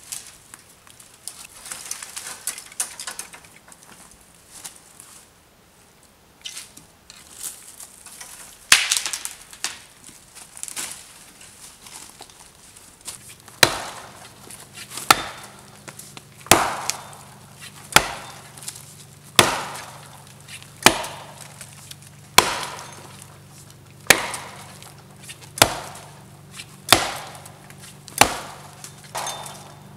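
Dry dead branches snapping and crackling as brush is handled. About halfway through, an axe starts chopping into a small standing tree trunk, one sharp blow about every second and a half.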